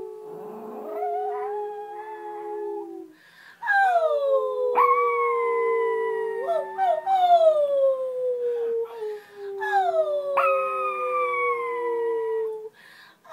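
Pomeranian howling in long notes that start high and slide down, starting over several times, with a man howling along on a steadier lower note. There is a short break about three seconds in, and the howling stops just before the end.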